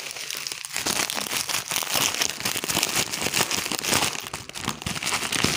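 Plastic packaging bag crinkling and crackling as hands pull it open.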